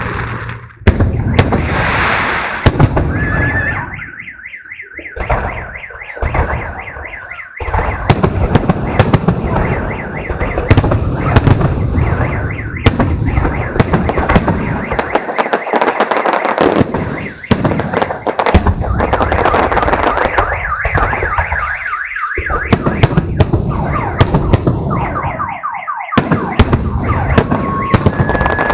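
Fireworks display: aerial shells bursting overhead, loud sharp bangs in quick succession over continuous crackling, with a few short lulls.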